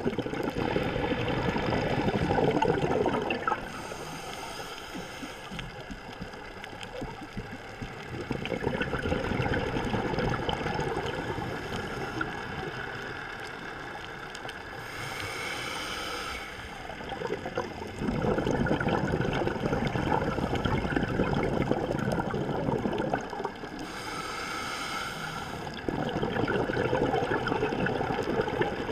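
A scuba diver breathing through a regulator underwater. There is a short hiss on each inhale, three times, and each is followed by a longer spell of bubbling, gurgling exhaled air.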